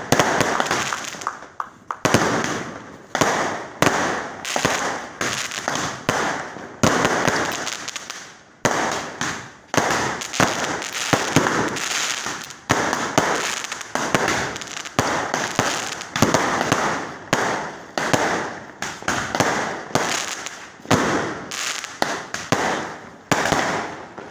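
A barrage of fireworks going off: sharp bangs about once a second, each dying away before the next one.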